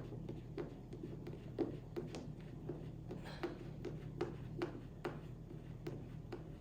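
Light, irregular clicks and taps, about two a second, of metal cart parts and bolts being handled and fitted during assembly, over a steady low hum.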